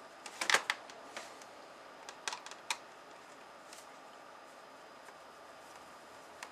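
Small sharp clicks and taps of a screwdriver and fingers working the screen hinge and frame of a Samsung R480 laptop. A cluster comes about half a second in and a few more around two to three seconds in, then only faint hiss.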